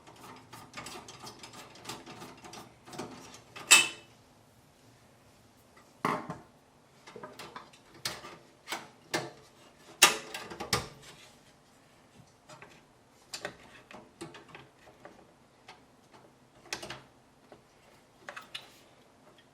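Irregular clicks, ticks and a few sharper metallic knocks from a screw being taken out of the expansion-slot bracket of a PC case and small metal parts being handled, ready to fit a graphics card.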